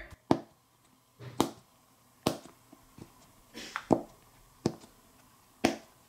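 Silicone pop-it fidget toy bubbles being pushed in by finger one at a time: about six sharp, separate pops roughly a second apart. The pop on the way in is much thicker, from the toy's thicker silicone.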